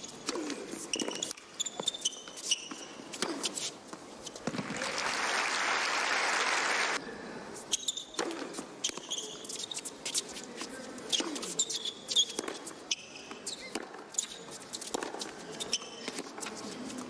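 Tennis play on a hard court: ball bouncing, racket strikes and short high shoe squeaks. About five seconds in, a burst of crowd applause swells and then cuts off suddenly.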